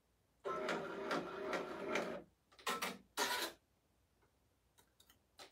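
Multi-needle embroidery machine's motors whirring for about two seconds, then two shorter whirrs about half a second apart.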